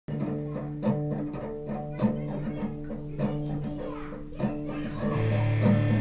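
Guitar music: picked notes ringing over a steady chord pattern, with a louder held chord about five seconds in.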